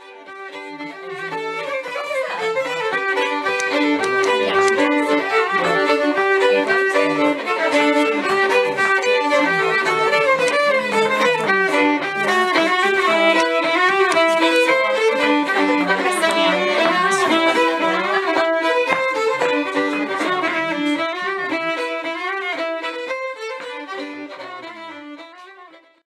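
Two fiddles playing a tune together as a duet, fading in over the first couple of seconds and fading out near the end.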